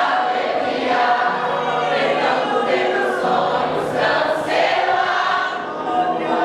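Vocal group singing a gospel medley together, several voices in harmony.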